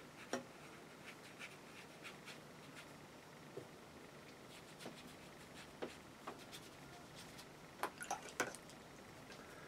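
Quiet scattered taps and clicks of a watercolour brush dabbing paint onto paper and working in a paint palette, with a short cluster of louder clicks about eight seconds in as the brush goes back to the palette and water pot.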